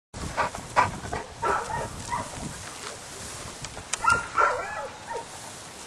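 Clumber spaniel giving a string of short, high barks and yips, the loudest about a second in and another cluster around four seconds.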